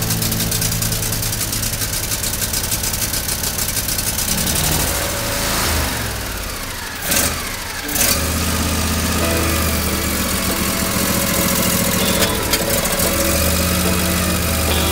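John Deere mower's engine running. About six seconds in its pitch sags and it nearly dies, two sharp clicks follow, and then it picks back up and runs steadily.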